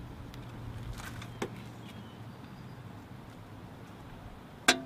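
A portable metal wheel step being handled and folded, with a few light clicks about a second in and one sharp metallic clank near the end as it folds shut. A low hum fades out in the first half.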